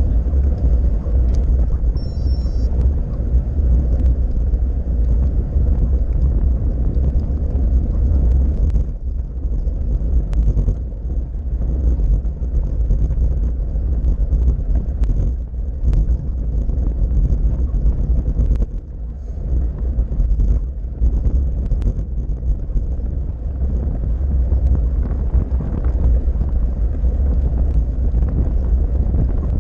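Wind buffeting a handlebar-mounted camera's microphone as a road bike rides along, mixed with tyre and road rumble; a steady low rumble that eases briefly twice, about a third and about two thirds of the way through.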